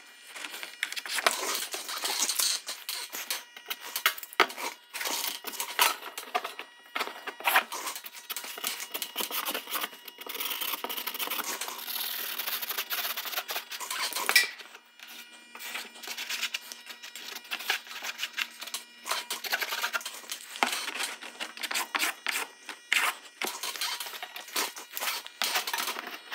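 Felt-tip marker scratching in quick strokes on pressed paper, mixed with clicks and rubbing of a flexible straightedge being handled against it, with a short lull about halfway through.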